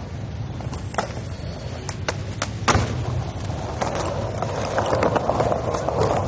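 Skateboard wheels rolling over stone paving: a steady rumble broken by several sharp clacks, the loudest about two and a half seconds in, with the rolling noise growing louder in the second half.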